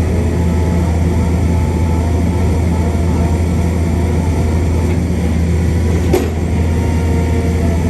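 Heavy construction machine's diesel engine running steadily with a deep, even drone, and a single sharp knock about six seconds in.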